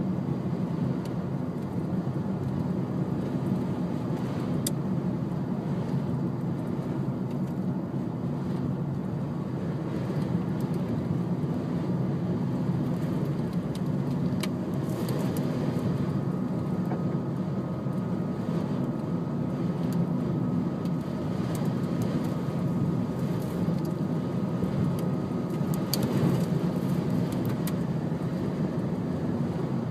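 Steady low drone of a car driving, road and engine noise heard from inside the cabin, with a few faint sharp ticks.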